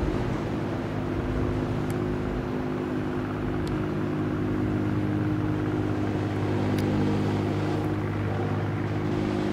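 Bulk carrier's diesel engine running with a steady low drone as the ship passes.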